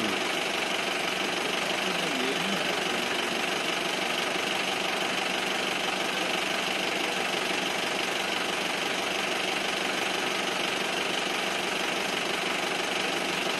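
Vehicle engine idling steadily, a continuous drone with no separate events standing out.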